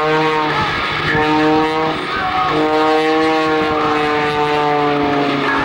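Aerobatic airplane's piston engine and propeller droning at a steady pitch in a fly-by. The drone breaks off briefly about a second in and again about two seconds in, then sinks slightly in pitch over the last three seconds.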